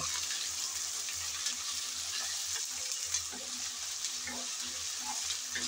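Onion with ginger and garlic paste sizzling in hot oil in a pan, stirred with a wooden spatula that gives a few soft scrapes against the pan.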